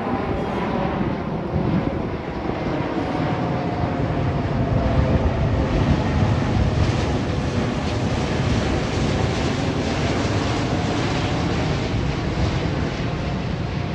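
Jet airliner passing on approach, its engines a steady rushing noise with faint tones that drift slowly, with wind buffeting the microphone.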